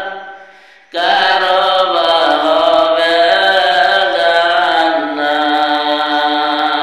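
A solo voice singing a Bengali Islamic ghazal in long, drawn-out notes; one phrase fades away, and after a short pause a new phrase begins about a second in.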